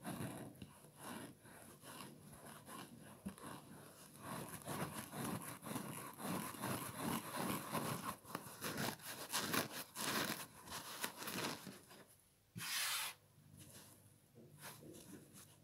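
Kitchen sponge foam being plucked and torn from its scouring pad by fingers: a dense run of quick, soft tearing and rubbing scratches, busiest in the middle, with one louder half-second burst near the end and then a few softer rubs.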